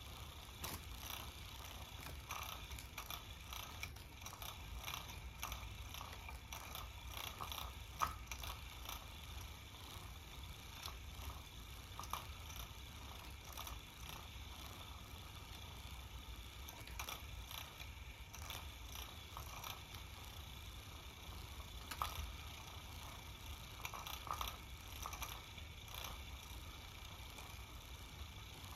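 Battery-powered cat teaser toy's small motor whirring steadily, with irregular light clicks and taps from its mechanism and swinging feather lure. Two sharper clicks stand out, about eight seconds in and again about twenty-two seconds in.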